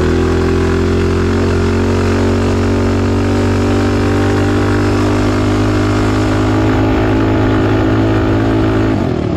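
Single-cylinder Predator 212-based 223cc stroker engine on a bike, pulling at a steady pitch under throttle while being ridden. The revs drop just before the end.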